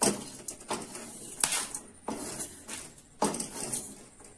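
Wooden spatula scraping and knocking against an aluminium kadai in about five separate strokes, as dry-roasted cinnamon pieces are scooped out of the pan.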